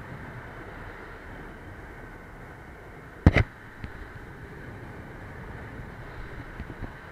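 Steady rushing noise of a paramotor flight heard on the onboard camera, broken about three seconds in by a sharp double knock on or near the camera, with a few faint ticks after it.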